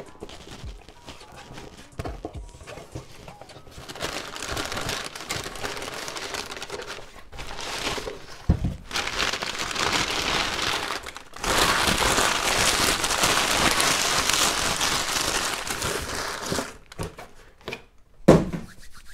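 Bubble wrap crinkling and rustling as a wrapped package is handled close to the microphone. It is quiet at first, builds after a few seconds and is loudest in the second half, with a single thump about eight seconds in.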